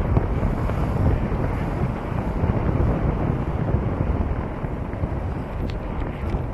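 Steady low wind rumble buffeting the microphone of a 360 camera on a moving bicycle, with a couple of faint clicks near the end.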